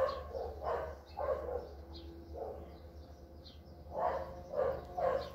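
A dog barking in short repeated barks, in bouts with a pause in the middle, with a few faint bird chirps in between and a steady low hum underneath.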